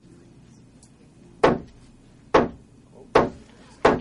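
Four sharp knocks, a little under a second apart and coming slightly quicker each time, each ringing briefly in the room.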